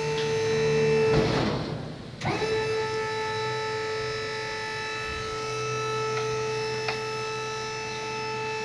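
Electric hydraulic pump of a tipping trailer running with a steady whine as its ram lifts the tipper bed. The whine cuts out about a second in and starts again about a second later.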